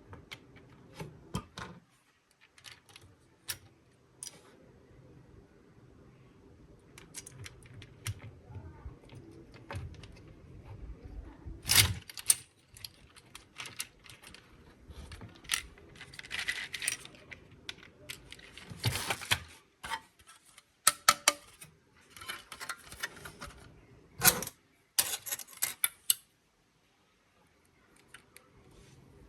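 Hard plastic parts and small metal pieces of a transparent toy RC car clicking, rattling and scraping as it is taken apart by hand: irregular sharp clicks with a few louder clacks and short stretches of rubbing.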